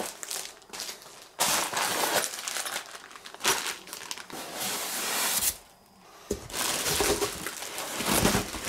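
Plastic packaging bags crinkling and rustling as bagged parts and a plastic-wrapped saw are handled out of a cardboard box with a polystyrene insert, in several noisy bursts with a short lull about six seconds in.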